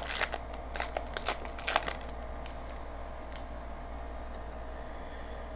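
Foil wrapper of a Star Wars Evolution trading-card pack being torn open and crinkled: crackling for about the first two seconds, then only a steady low hum.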